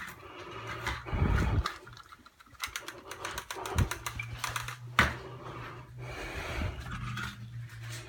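Irregular clicks and knocks of something being handled, the sharpest about five seconds in, over a low steady hum that comes and goes.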